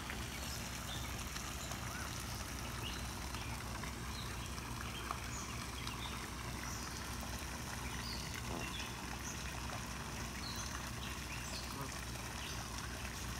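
Young waterfowl peeping: scattered short, high-pitched chirps, over a steady low background rumble.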